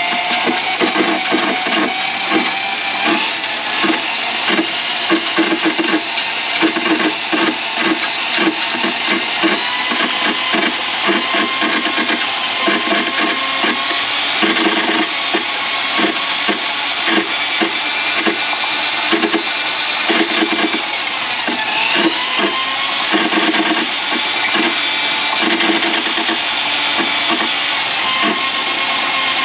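Electric drain-cleaning machine running, its spinning cable rattling rapidly in the drain line as it works through a grease clog. The motor whine dips and rises again as the cable takes load, most clearly near the start and about two-thirds of the way in.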